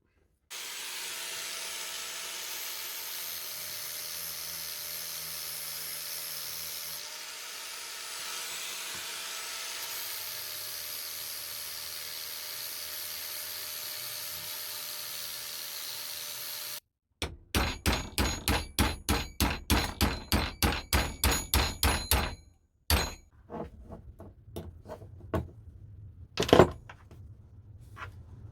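A steady whirring runs for about sixteen seconds, then a hammer strikes metal rapidly, about four blows a second for some five seconds, followed by scattered single knocks. The rapid blows fit knocking the pins out of a strapped hammer's head and wooden handle.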